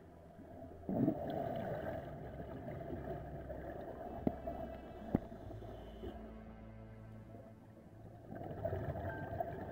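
Scuba diver's exhalation bubbles heard underwater: a bubbling, gurgling surge from about a second in that slowly dies away, then a second one near the end, with two sharp clicks in between over a low steady hum.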